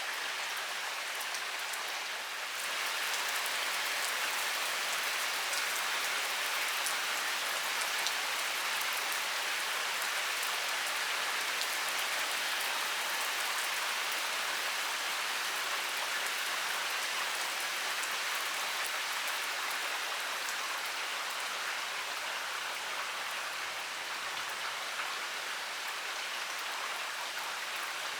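Heavy rain pouring down in a steady hiss of countless drops striking surfaces. It swells a little louder a couple of seconds in, then holds steady.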